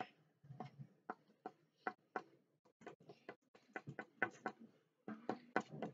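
Felt-tip pen tip tapping dots onto paper, making a pointillism pattern: faint, quick, irregular taps, about three or four a second.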